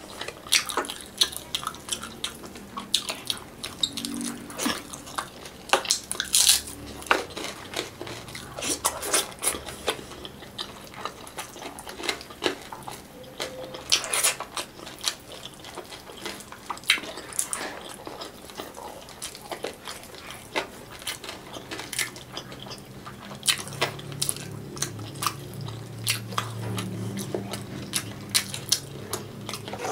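Close-up eating sounds: wet chewing and lip smacking on tilapia stewed in coconut milk, eaten by hand, with many short sharp mouth clicks throughout.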